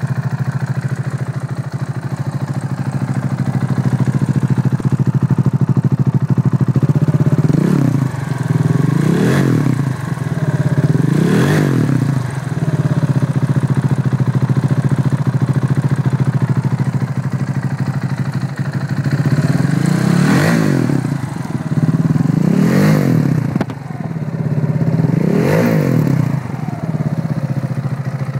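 KTM Duke 690's single-cylinder LC4 engine idling through an Akrapovic exhaust with the dB killer removed. It is blipped sharply three times from about seven seconds in, then idles steadily, then is blipped three more times from about twenty seconds in.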